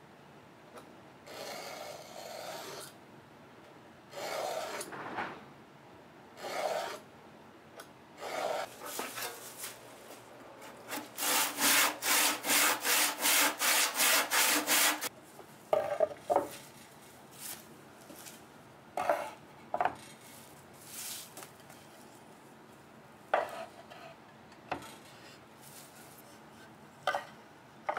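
Handsaw cutting wood: a run of quick, even strokes, about three a second, for some four seconds mid-way, after a few slower scraping strokes. Several short, sharp knocks follow later on.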